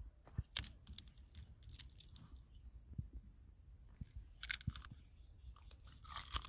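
Crisp fried chicken skin crunching and crackling in short bursts every second or two.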